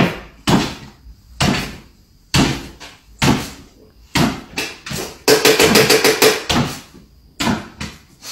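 A small dog jumping repeatedly on its hind legs, its paws thumping onto a wooden floor about once a second, with a quick run of rapid taps from the claws about two-thirds of the way through.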